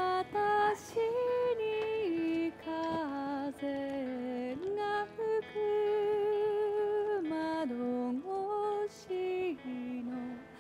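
Background music: a slow, gentle song, its melody carried by a female voice in long held notes.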